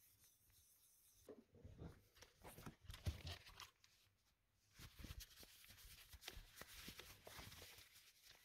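Faint handling noises of a plastic watch, with one sharper knock about three seconds in. From about five seconds on, a microfiber cloth rubs steadily over the watch's plexiglass crystal, wiping it after scratch removal.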